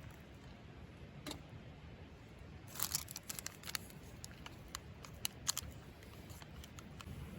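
Light clicks and clinks of small hard objects being handled: one about a second in, then a quick irregular run of them from about three to five and a half seconds, over a low steady background noise.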